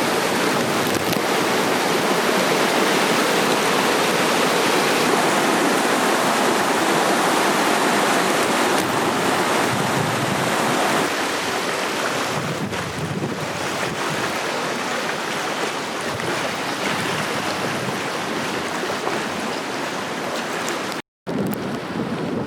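Loud, steady rush of floodwater in spate, easing slightly about halfway through; the sound drops out for an instant near the end.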